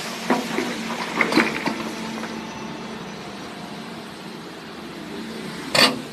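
Hyundai R800LC-9 excavator's diesel engine running steadily. In the first two seconds come several sharp clanks and knocks, and a loud, short crash comes near the end.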